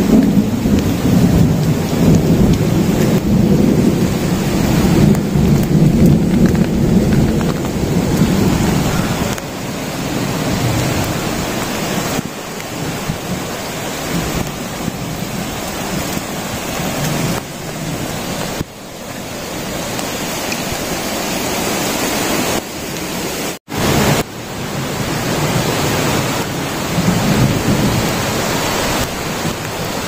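Heavy rain falling steadily as a dense hiss of water, with a deeper rumble under it through roughly the first ten seconds.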